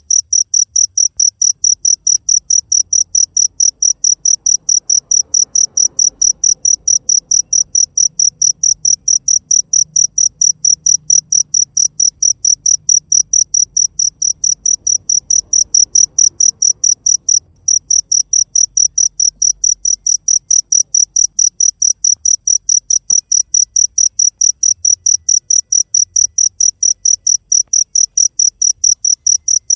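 A cricket chirping: a loud, high-pitched chirp repeated evenly at about four a second, with one brief break a little past the middle.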